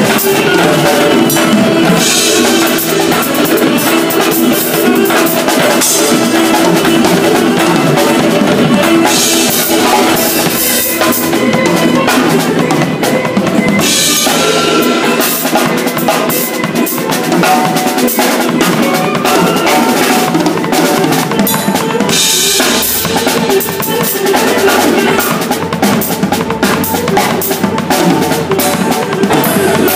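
Tama drum kit played in a fast gospel style, with dense snare, tom and bass drum strokes and bright cymbal washes every few seconds.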